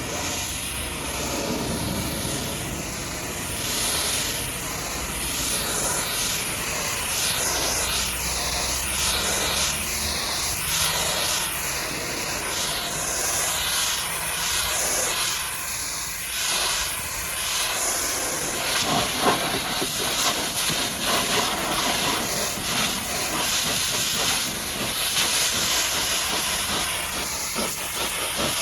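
High-pressure washer jet spraying mud off a truck: a steady, loud hiss whose tone keeps sweeping up and down as the jet moves. About two-thirds of the way through it turns rougher and more spattery.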